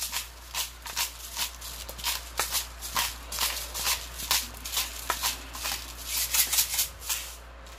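Salt being added to the vegetables from a grinder or shaker: a rapid series of short, sharp strokes, about two or three a second, that stop shortly before the end.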